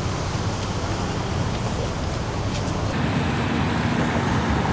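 Steady road traffic noise, with an abrupt change in its character about three seconds in.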